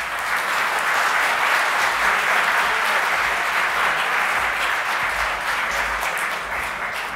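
Audience of dinner guests applauding in a large hall, a steady dense clapping that starts straight away and slowly fades near the end.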